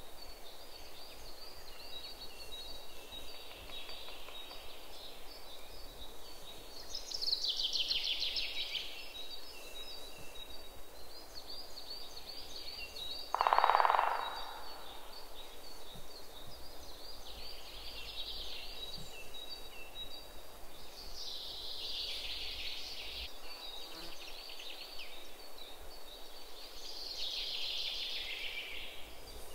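Micro-servos of a snake robot whirring in short high buzzing bursts every few seconds as it slithers, over a faint steady whine. About halfway through comes one louder, lower buzz lasting about half a second.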